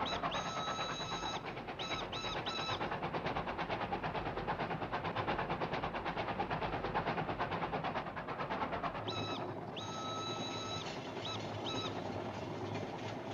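Train sound effect from an animated film: a fast, even clatter of a running train. Whistle toots come over it, a long one then three short ones near the start, and another long one with short ones about nine seconds in.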